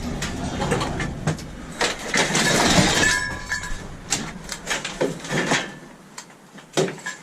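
Tangled scrap metal clanking and rattling as it is pulled and wrestled apart by hand, with a run of sharp knocks and a brief metallic ring about three seconds in.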